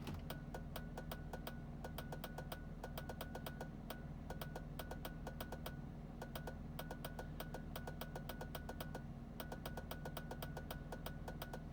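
Rapid relay clicking, several sharp clicks a second at a slightly uneven rate, with a faint high tone that comes and goes, from a 1999 BMW Z3 while the clutch pedal is held down. It is an electrical fault noise that the owner traced to the car's EWS 3.D immobilizer module.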